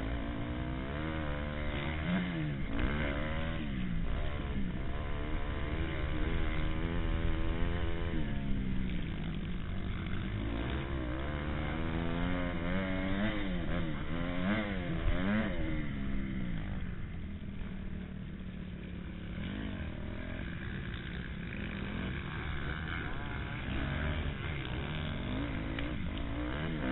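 Motocross bike's engine, heard on board from a camera mounted on the bike. It revs up and falls back again and again with throttle and gear changes, and eases off for a few seconds past the middle before building again.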